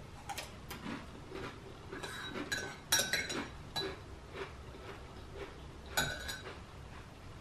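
A small metal utensil clinking and scraping against a plate, with several ringing clinks about two to three seconds in and another about six seconds in, among softer clicks of chips being handled.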